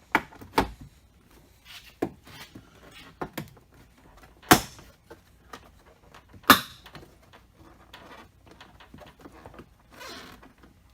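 Sharp clicks and knocks of hard plastic door trim and hand tools being handled on a Jeep Wrangler JK door, with the two loudest knocks about four and a half and six and a half seconds in.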